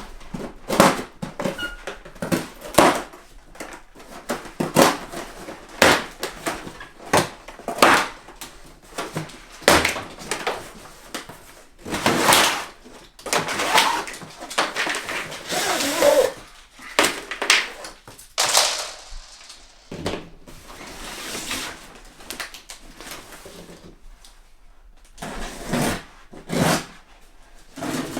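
A package being opened and unpacked by hand, likely with a knife: a string of knocks and clicks of handling, with a few longer scraping, rasping stretches.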